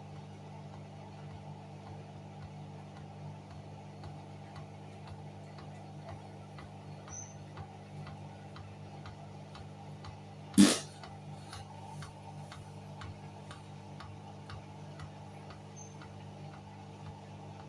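Hoover washing machine running with a steady low hum and regular light ticking about twice a second, with one sharp loud click about ten and a half seconds in, between its rinse and spin stages.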